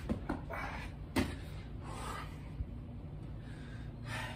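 A person doing burpees on a concrete patio: a couple of light knocks as the hands and feet meet the ground, then one sharp landing impact about a second in. Hard, gasping breaths come between the movements.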